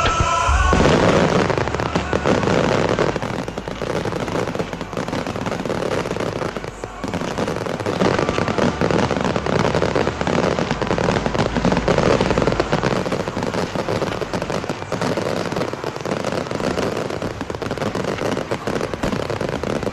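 Fireworks display: a dense, continuous barrage of shell bursts and crackling, with a brief lull about seven seconds in.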